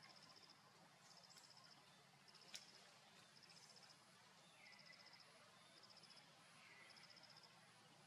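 Near silence with faint insect chirping: short pulsed trills repeating about once a second. A single sharp click comes about two and a half seconds in.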